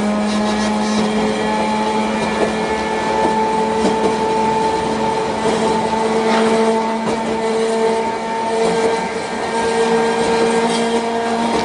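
Tosaden Kotsu tram running at a steady speed, heard inside the passenger car: the traction motors give a steady whine of several held tones over a constant running noise.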